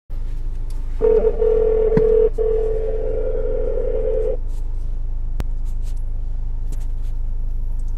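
Telephone ringing tone of an outgoing call: one steady tone lasting about three seconds, starting about a second in, over a low steady hum.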